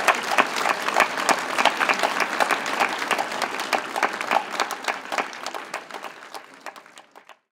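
A large seated audience applauding, the clapping dying away gradually and cutting off just before the end.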